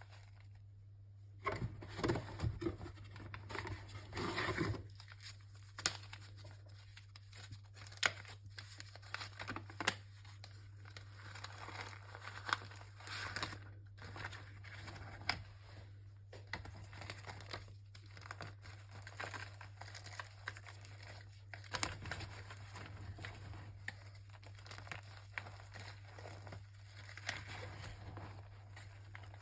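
Irregular crunching and crumbling of gritty chalk, densest and loudest in the first few seconds, over a steady low hum.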